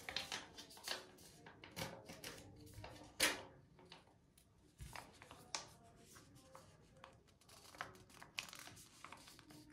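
Crinkling and crackling of a cosmetic mask sachet being handled and opened, a run of short, sharp crackles and light taps with the loudest about three seconds in.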